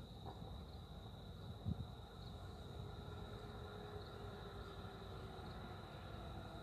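Crickets chirring faintly in one steady, continuous high trill over a low rumble. A single dull thump comes about a second and a half in.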